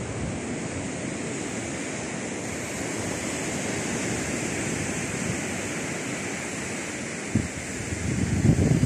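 Ocean surf washing onto a sandy beach, a steady hiss. Wind buffets the microphone in low rumbles that grow stronger near the end.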